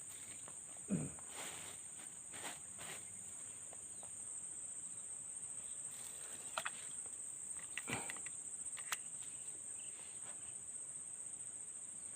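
Steady high-pitched insect chorus, with a few scattered knocks and clicks, the loudest about a second in.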